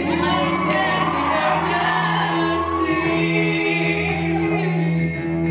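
A female and a male singer duetting through handheld microphones over a held electronic keyboard accompaniment, amplified live on stage.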